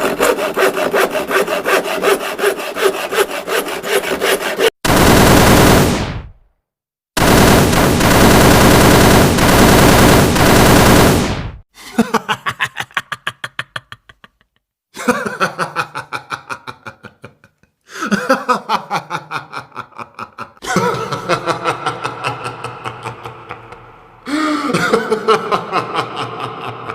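A run of different short sound effects played back to back: rapid repeated strikes, then two harsh noisy blasts, then several runs of quick pulses that each start loud and fade away.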